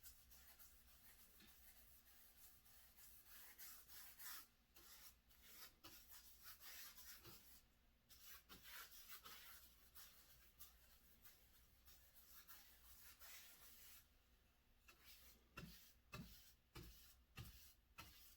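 Faint paintbrush strokes brushing wall paint onto drywall, a soft scratchy swish repeating unevenly, with a few light taps near the end.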